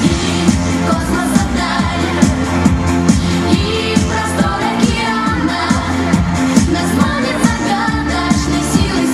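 Recorded pop-style dance music with a singing voice and a steady beat of about two strong hits a second.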